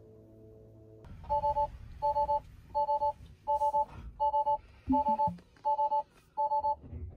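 Electronic alert beep, each a short two-tone beep, repeating eight times at about one every 0.7 seconds over a low rumble.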